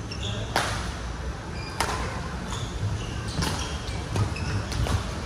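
Badminton rally: sharp hits of racket strings on the shuttlecock about once a second, with short squeaks of shoes on the court floor between them, over a steady low hum.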